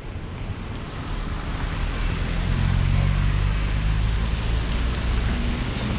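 A car driving on a wet road, heard from a microphone on its roof: tyre hiss and wind rush over a low rumble, getting louder about two seconds in as a low engine hum comes up.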